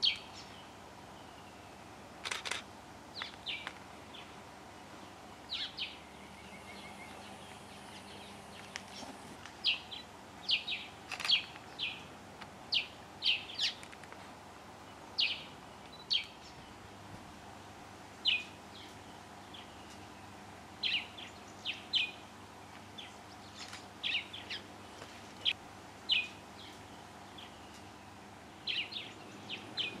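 Starlings giving short, sharp calls, often in pairs or quick runs, scattered irregularly one every second or so. These are alarm calls at a rock monitor lizard. A faint steady hum runs underneath.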